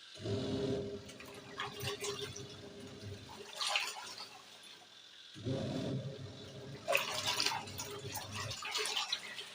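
Twin tub washing machine's wash tub running: the motor hums while the pulsator churns water and clothes. It runs for about three seconds, stops for about two, and starts again, the stop-start agitation of the wash cycle. Water sloshes throughout.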